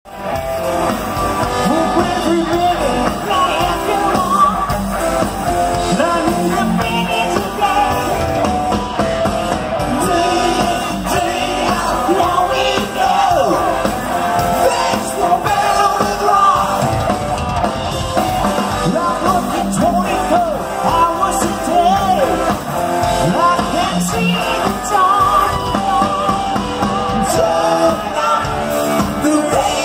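Live rock band playing loudly: a lead singer over electric guitars, bass guitar and drums, recorded from within the audience.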